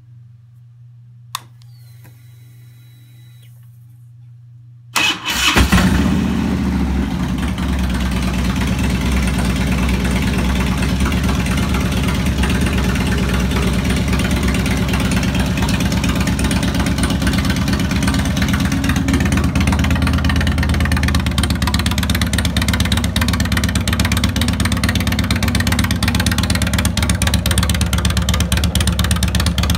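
Harley-Davidson Twin Cam 88 V-twin of a 2002 Road King Classic being started: about five seconds in the starter cranks briefly and the engine catches, then idles steadily. It is running freshly fitted with new cam chain tensioners and lifters.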